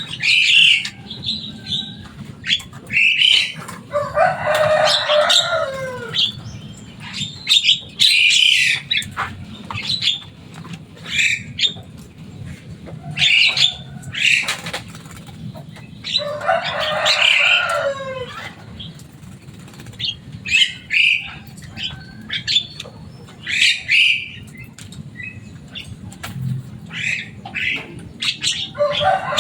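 Javan myna (jalak kebo) calling repeatedly with short, loud, harsh calls. Three longer, lower calls each slide downward at the end: about 4 seconds in, about 16 seconds in, and again near the end.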